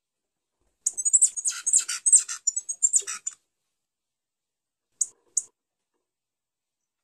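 Grey pileated finch singing: a rapid, jumbled phrase of high notes lasting about two and a half seconds, then two short high chirps a couple of seconds later.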